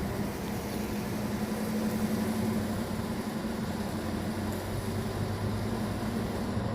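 Steady drone of a vehicle's engine and road noise heard from inside the moving car, a low even hum with no sudden events.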